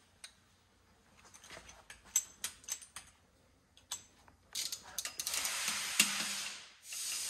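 Light metallic clicks and clinks of hand tools. About halfway through comes a few seconds of rapid ratcheting from a torque wrench tightening the bolts on the engine's front pulley.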